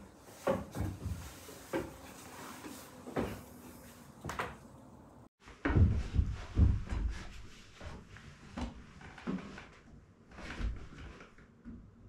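Scattered wooden knocks and thumps as a wooden loft ladder is handled and climbed, with boots on the rungs and boards. The sound drops out for a moment about five seconds in, then comes back with a cluster of heavier thumps.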